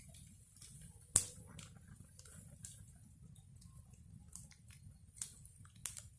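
Wood bonfire crackling: scattered sharp pops and snaps over a low steady rumble of the flames, with one loud pop about a second in and a few more near the end.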